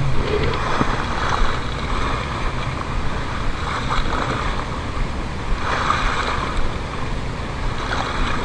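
Small waves washing and splashing against the foot of a concrete seawall, coming in irregular surges, with wind blowing across the microphone.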